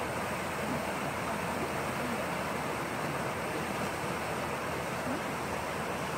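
Shallow water flowing over stones in a salmon spawning channel, a steady even rush.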